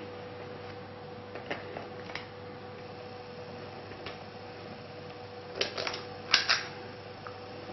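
Metal squeeze-lever portion scoop clicking and clinking as it releases cupcake batter into paper liners in a metal muffin tin, a few light clicks early on and a quick cluster of sharper clicks about six seconds in, over a steady faint hum.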